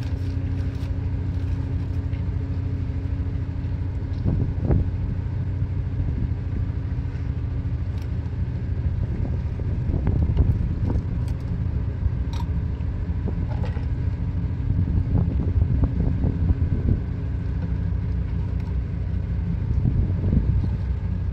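Ship's engine running steadily, a low, even hum, with a few faint light clicks over it.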